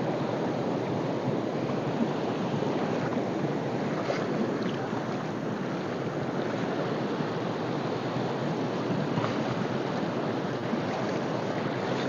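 Fast shallow mountain river rushing steadily over rocks and rapids.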